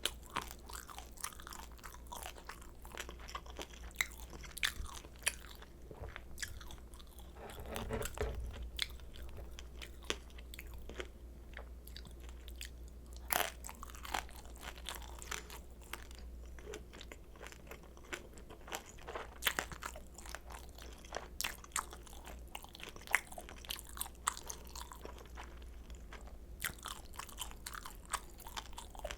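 Close-miked chewing of crispy pan-fried kimchi dumplings: many small crunches and crackles, irregular throughout, over a steady low hum.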